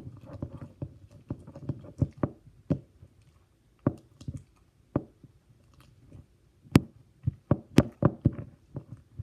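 Crunchy slime being kneaded and squeezed by hand, giving irregular sticky pops and crackles, with a few sharper snaps in the latter half.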